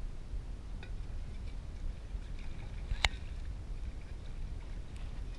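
Lake water sloshing and splashing as a frying pan is rinsed at the shoreline, over a steady low rumble of wind on the microphone, with a single sharp clink about three seconds in.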